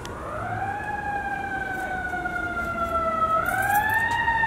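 Emergency vehicle siren in a slow wail: one tone that slowly falls, rises again about three and a half seconds in, then begins to fall once more.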